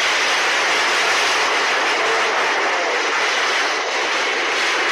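Loud, steady rushing of a flash-flood torrent of muddy water surging through the street and breaking against buildings.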